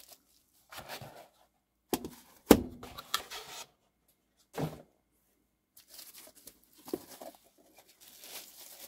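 Bubble wrap crinkling and rustling as it is handled around a small box, in short bursts with quiet gaps between. A sharp tap about two and a half seconds in is the loudest sound.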